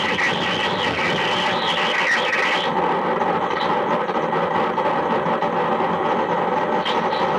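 Lo-fi experimental noise music played from a cassette tape: a dense, steady wall of noise. A brighter hissing layer rides on top for the first two to three seconds, then drops out.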